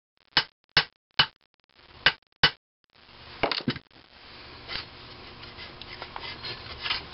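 Small hammer tapping a gib key home into the cam and timing gear hub on the crankcase side plate of an IHC Type M engine: five sharp metal taps, three evenly spaced and then two more after a short pause. Then rubbing and light clunks as the cast-iron side plate is picked up and handled on the bench.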